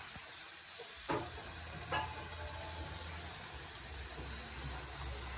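Steady faint hiss of food cooking on the stove, with two light knocks about one and two seconds in.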